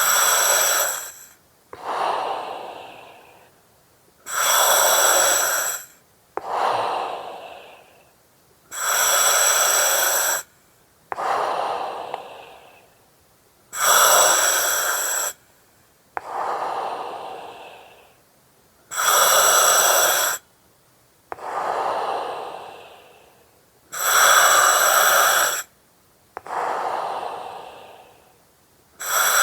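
Breathing through an oxygen mask, about one breath every five seconds. Each cycle is a loud oxygen hiss from the mask regulator that starts and stops sharply, followed by a softer breath that fades away.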